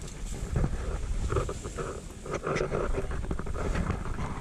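Wind rumbling on the microphone.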